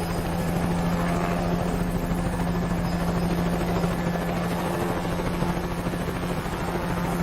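Helicopter sound effect: a steady, rapid rotor chop over an even engine hum.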